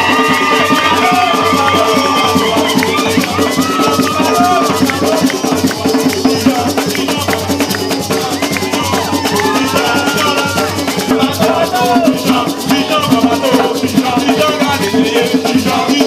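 Gwoka music played live: ka hand drums with a shaker rattling fast, and voices singing over them.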